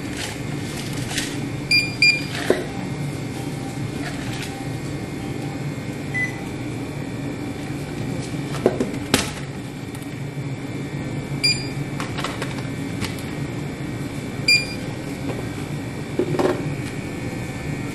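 Barcode scanner at a store checkout beeping as items are scanned: a short high beep every few seconds, three or four in all. Between beeps come a few knocks and rustles of goods being handled, the sharpest about nine seconds in, over a steady background hum.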